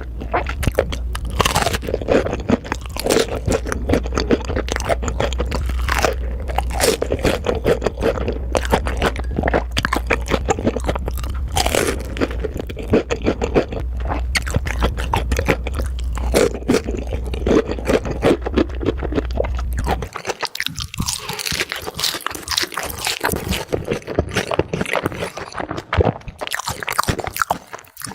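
Close-miked eating: crisp, rapid crunching and chewing of food, one bite after another. A low hum underneath cuts off about two-thirds of the way through, where the crunching changes character.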